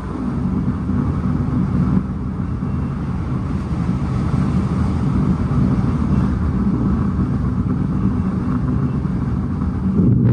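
Interior running noise of a PATCO Speedline rapid-transit car at speed: a steady low rumble of wheels on rail and traction motors, growing a little louder near the end.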